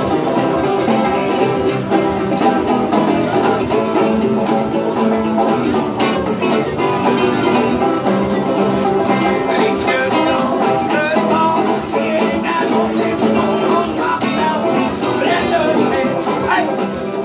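Acoustic string band of banjos and guitars playing a tune, the banjos plucked alongside the guitars.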